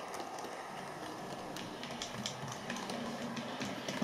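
Model Class 105 diesel multiple unit running along the track: a low electric motor hum with many quick, irregular clicks and rattles from the wheels on the rails.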